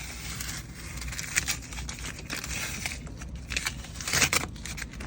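Masking tape being peeled off plastic car-interior trim, a crackling, tearing noise in several separate pulls, the loudest near the end.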